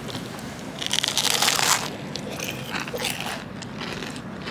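Bites into a crisp bungeoppang, the fish-shaped filled pastry, giving a burst of crunching crackle about a second in, then smaller crunches while chewing.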